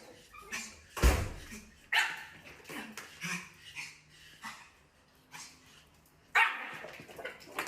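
A dog barking in short, separate barks at irregular intervals, the loudest about one, two and six seconds in.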